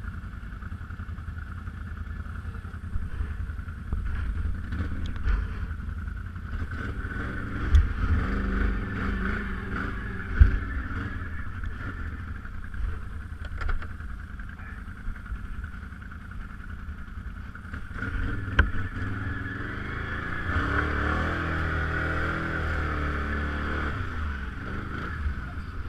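BRP off-road vehicle's engine running over rough ground, with a few sharp knocks and thumps. From about twenty seconds in it revs up and down for several seconds.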